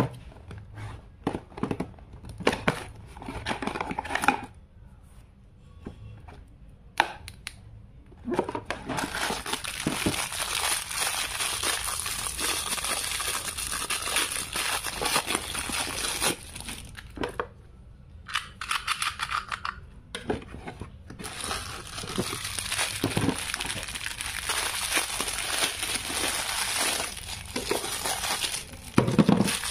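Parcel packaging being torn and crumpled open by hand. A few short taps and clicks come first, then, after a brief lull, long stretches of steady tearing and crinkling, with a dull thud near the end.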